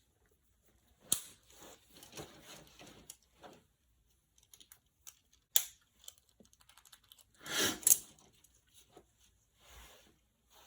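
Small plastic kit parts and packaging being handled: scattered light clicks and taps, with a louder crinkling rustle about three-quarters of the way through.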